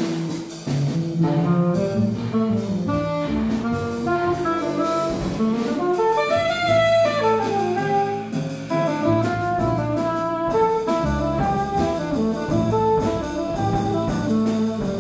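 Contemporary jazz quartet playing live: alto and tenor saxophone lines over double bass and drum kit.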